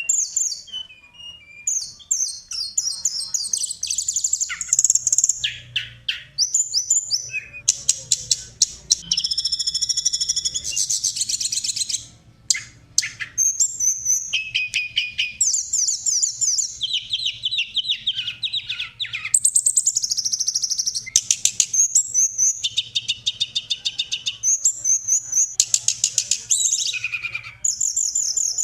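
Songbirds of several kinds singing one after another in a 'masteran' birdsong compilation used to teach caged songbirds: fast high chirps, trills and rattling strings of notes with hardly a pause.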